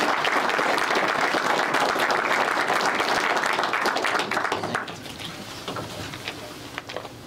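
Audience applauding, a full round of clapping that thins to scattered single claps after about four and a half seconds.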